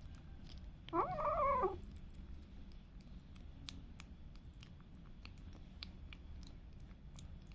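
A kitten meows once about a second in, a short call under a second long that rises and then wavers. Small clicks of a kitten licking at a squeeze-tube cat treat run all through.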